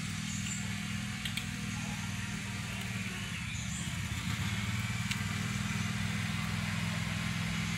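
A steady low mechanical hum, as of an idling engine or motor running, with a few faint clicks.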